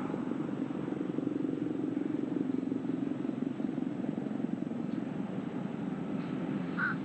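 Falcon 9 first stage's three Merlin 1D engines firing in the re-entry (entry) burn, a steady low roar on the webcast's onboard audio.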